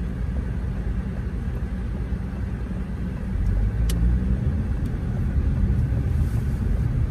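Car engine and road rumble heard from inside the cabin, growing louder about three seconds in as the car pulls away. A faint click comes shortly after.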